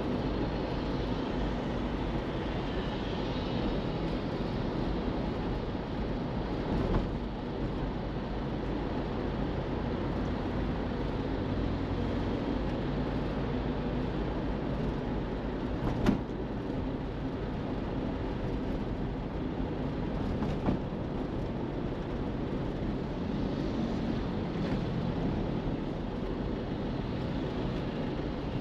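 A car driving: steady engine and road noise with no talk or music, broken by three short knocks, the loudest about sixteen seconds in.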